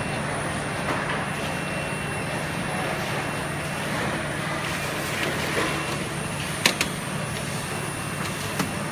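Tunnel baking oven and its tray conveyor running: a steady machine hum and hiss, with a sharp knock about two-thirds of the way through and a smaller one near the end.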